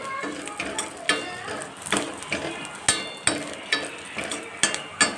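Spatula stirring and scraping grated coconut around a pan as it roasts in a little oil, with a light sizzle underneath. The scrapes and knocks come about two a second.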